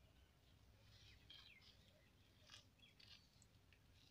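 Near silence, with faint irregular rustling and scratching of ripe palmyra palm fruit fibres being pulled apart by hand.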